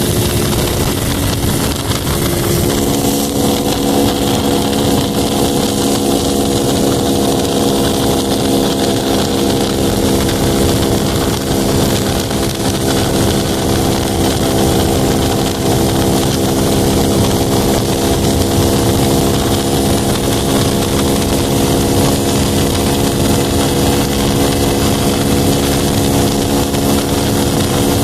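Honda Pop 110's single-cylinder four-stroke engine running at a steady speed while riding, its pitch holding level, under a steady rushing noise.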